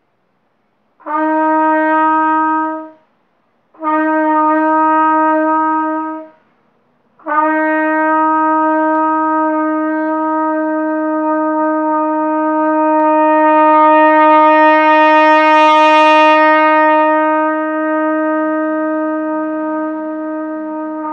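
Trumpet playing held notes on one pitch: two tones of about two seconds each, then one long tone that swells louder and brighter in the middle and fades away toward the end. It is a long-tone exercise in sound production and breath control, with a controlled crescendo and diminuendo.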